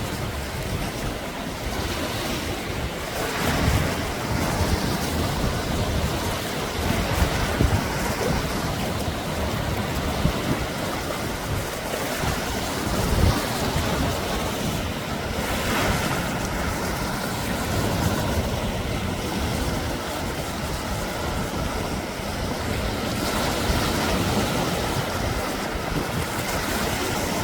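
Sea waves washing onto a beach in a steady surf, with wind buffeting the microphone in low rumbles and a few brief surges.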